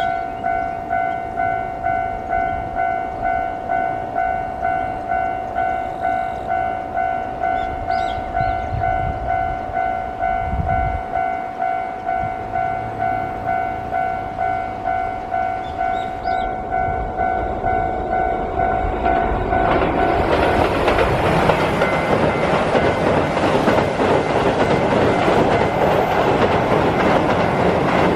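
A Japanese level-crossing warning bell rings in a steady, even pulse, under a faint rumble. About twenty seconds in, a Keihan electric train reaches the steel bridge and runs past with a loud, continuous rush of wheel and bridge noise that buries the bell.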